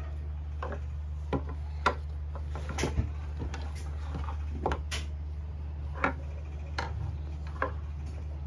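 Plastic buckles and straps of a LennyLamb baby carrier clicking and knocking against a wooden bench as the carrier is handled and folded: about a dozen irregular knocks, over a steady low hum.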